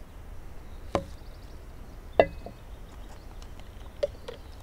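Three knocks as a stainless steel mug and a plastic pour-over coffee dripper are set down on a wooden picnic table. The loudest comes about two seconds in and rings briefly.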